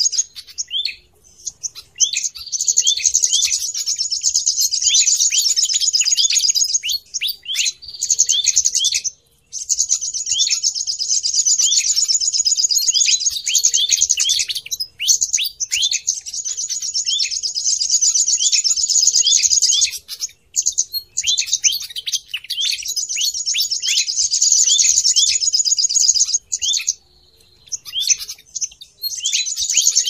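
Small songbirds singing in long bouts of rapid, high chirping with quick downward-sweeping notes, broken by short pauses now and then; a recorded bird-lure call.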